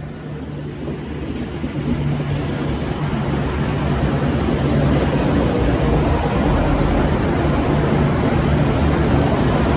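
V/Line VLocity diesel railcar running, growing louder over the first five seconds or so and then holding steady with a low engine hum as the train goes by.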